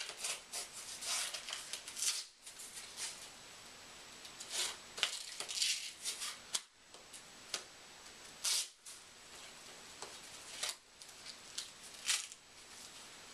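Straps of a plastic KFO leg brace being pulled tight and fastened by hand: irregular short rasping and rubbing noises, a few of them louder than the rest.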